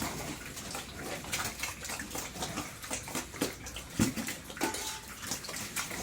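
Irregular wet splashing and slopping, with many small clicks and a louder knock about four seconds in.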